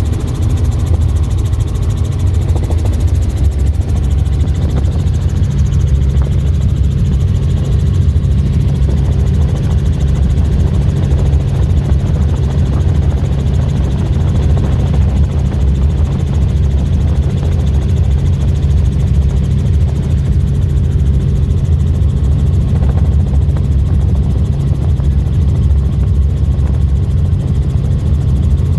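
Helicopter rotor and engine noise heard from inside the cabin, a steady loud low drone throughout.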